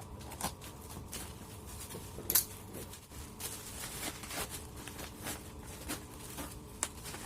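Packaging being handled and unwrapped by hand: scattered rustles and crinkles, with one sharper crackle about two and a half seconds in.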